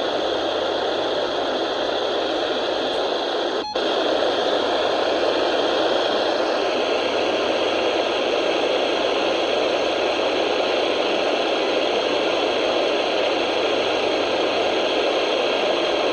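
Loud, steady hiss of FM radio static from a weather radio receiver left with no signal while the weather radio transmitter is off the air. The hiss drops out for an instant about four seconds in and comes back slightly louder.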